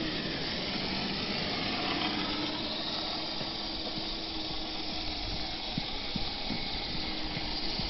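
Two radio-controlled scale crawler trucks rolling slowly along a gritty lane, the blue Traxxas TRX-4 towing the other on a line: a steady hiss of tyres and drivetrain with a faint electric-motor whine and a few small ticks of grit in the second half.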